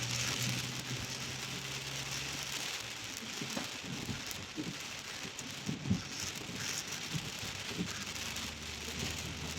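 Heavy rain, heard from inside a moving car, making a steady hiss with scattered patters. A low steady hum runs underneath.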